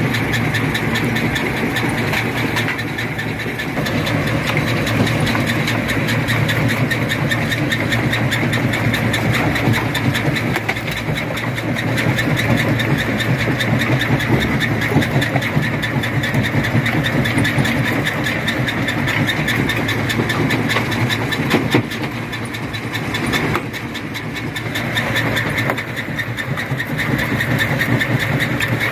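Rock crusher running under load: a steady machine drone with a dense, continuous crackle of stone being crushed. It eases off for a couple of seconds about three-quarters of the way through.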